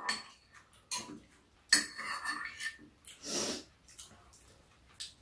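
Metal spoons and chopsticks clicking and clinking against bowls as two people eat: a few separate knocks, with one ringing clink about two seconds in, and a short breath about three seconds in.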